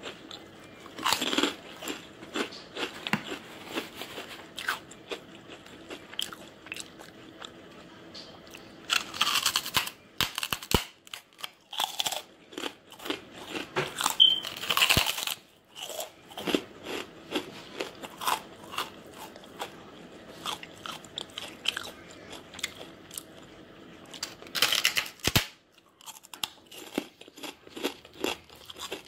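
A person biting and chewing large crispy chips. There are several loud bursts of crunching, each about a second long, with quieter crackling chews between them.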